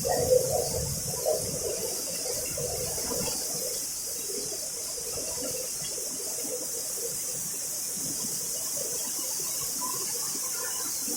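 Heavy rain falling in a steady, unbroken hiss, slightly louder and busier for the first second or so.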